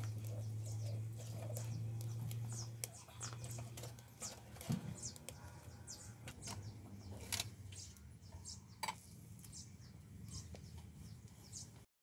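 Small birds chirping over and over in short, high, falling notes, above a low steady hum that drops away after about three seconds. A few sharp clicks are heard partway through.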